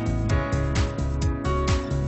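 Background music with a steady beat: drums and sustained instrument notes.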